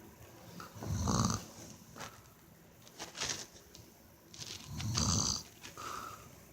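A person snoring: two loud snores about four seconds apart, with a fainter one between them.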